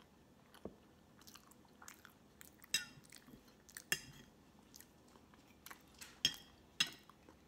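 A metal fork clinking and scraping on a ceramic plate, about four sharp ringing clinks, with soft chewing of cake in between.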